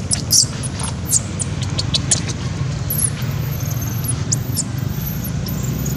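Newborn long-tailed macaque squeaking: quick, very high-pitched squeaks in the first couple of seconds, then longer squeals that rise and fall in the second half. A steady low rumble runs underneath.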